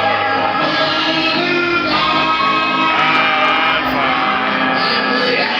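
Loud gospel music with a group of voices singing along, the melody lines rising and falling throughout.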